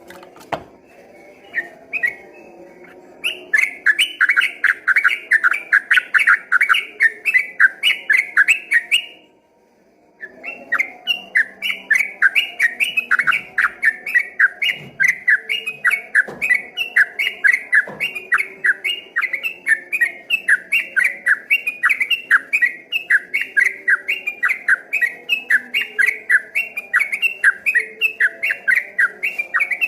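Yellow-vented bulbul (trucukan) singing its long, rapid 'ropel' song: a fast, unbroken string of repeated notes, several a second. It breaks off about nine seconds in and starts again a second later.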